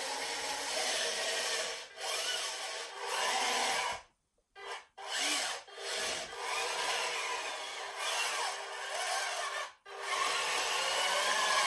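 Electric drive motors and gearboxes of a radio-controlled G.I. Joe Warthog toy tank, with its plastic tracks, running with a rasping grind. The motors stop about four seconds in, run in a few short bursts, run steadily again, and cut out briefly near ten seconds before starting again as the tank changes direction.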